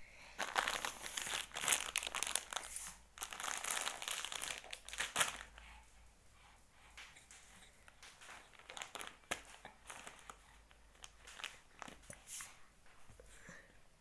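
Crinkling, crackly rustle, dense for the first five seconds or so, then thinning to scattered clicks and crackles.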